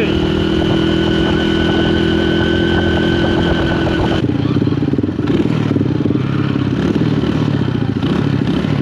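Honda Win motorcycle's small single-cylinder four-stroke engine running under way. It holds a steady note for about four seconds, then its revs rise and fall unevenly.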